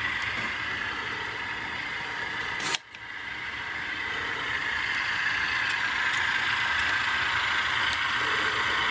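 Steady mechanical running sound from model diesel locomotives. It is broken about three seconds in by a sharp click and a brief dropout, then resumes slightly louder.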